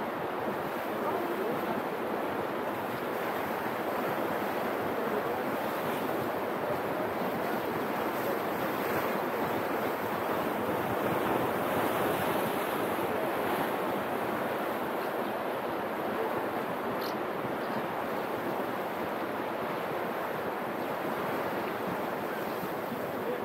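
Sea waves washing steadily against a breakwater of concrete blocks, with wind.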